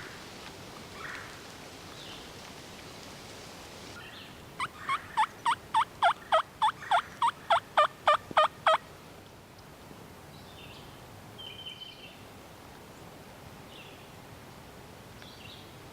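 Turkey call sounding a run of hen yelps: about fourteen evenly spaced notes, each dropping in pitch, about three a second, starting about four and a half seconds in and stopping some four seconds later. Called to draw gobblers in.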